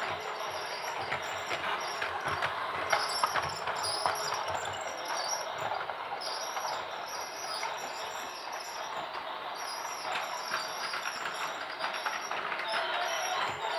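Toy train running on its track: a steady mechanical clatter with many small rapid clicks.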